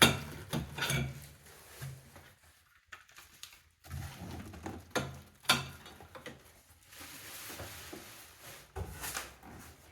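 Parts of a baby feeding chair being handled: a series of knocks and clacks as the legs and other pieces are picked up and set down, with a stretch of rustling near the end.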